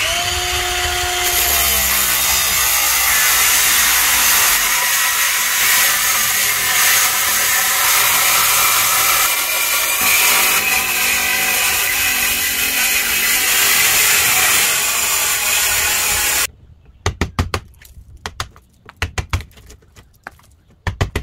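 DeWalt 20V cordless circular saw with a masonry blade cutting through stucco and its wire lath: the motor's whine drops as the blade bites in, then it grinds steadily for about sixteen seconds and stops abruptly. A quick run of sharp hammer strikes follows near the end.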